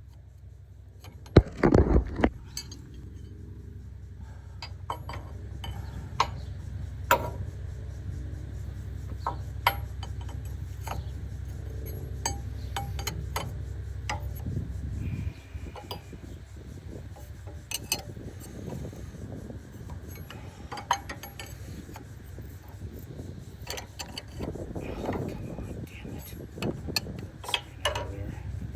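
Steel wrenches clinking and knocking against the backhoe's loader valve and its bolts as they are tightened: scattered sharp metal clicks throughout, with a louder cluster of knocks about two seconds in. A low steady hum runs under the first half and stops about halfway through.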